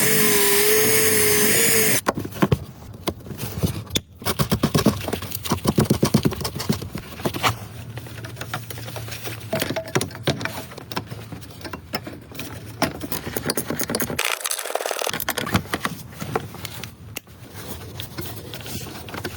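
A power tool runs steadily for about two seconds and then stops abruptly. After that come many clicks, quick rattling runs and scrapes of hand tools and metal parts.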